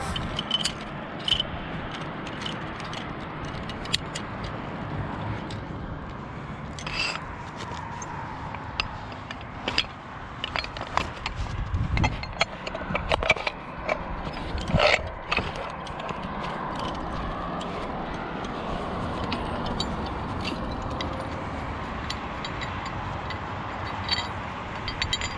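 Metal clinks, knocks and scrapes of a steel shackle and tower hardware being handled on a steel lattice power-line tower, scattered throughout and busiest around the middle, over a steady background rush.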